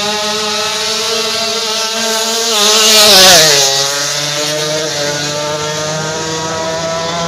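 Kawasaki Ninja drag bike engine running at a fast idle during a tune-up. About three seconds in it gets a brief throttle blip, the loudest moment, then settles at a lower, steady idle.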